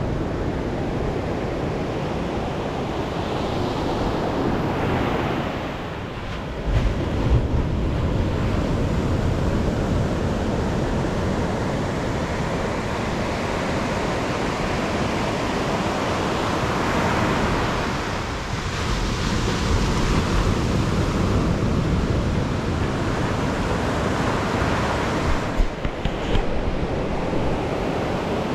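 Wind buffeting an action camera's microphone during a bike ride: a loud, steady rush. A few knocks come about a quarter of the way in and again near the end.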